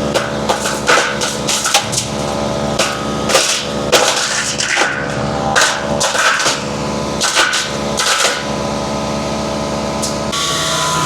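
MechMaxx B200 wood chipper running under load as a thick, short log is chipped, with sharp, irregular knocks about once or twice a second as the log bangs against the blades and bounces in the chute; the machine is straining on a log of about 6 inches. Near the end the knocking stops and the engine note steadies and shifts.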